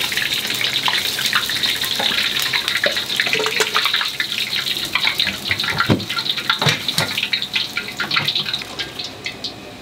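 Hot oil in a wok sizzling and crackling as freshly deep-fried breaded cutlets and a croquette drain in a strainer bowl set over it, with a dense hiss full of small pops. The crackle thins out and gets quieter near the end.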